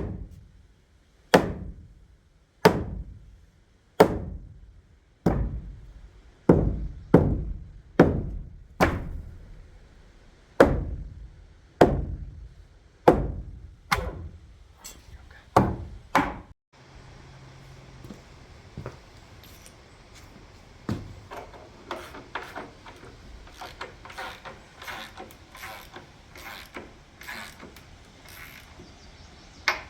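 Repeated heavy hammer blows in demolition work, about one every second and a half for the first half. After that, lighter, quicker knocks and clatter over a steady background noise.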